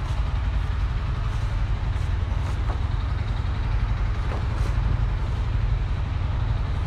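A steady, low engine rumble that holds at an even level throughout.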